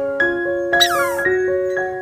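Background music of plucked or keyboard notes, with a short high-pitched call that falls steeply in pitch about a second in.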